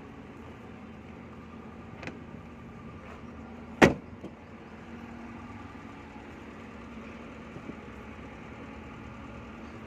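A single loud clunk of a Hyundai Santro Xing's door being worked just before four seconds in, with a lighter click about two seconds in. A steady low hum runs underneath.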